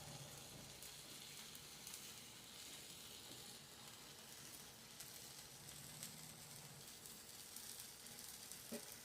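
Milkfish sizzling on a grill: a faint, steady hiss with scattered small crackles.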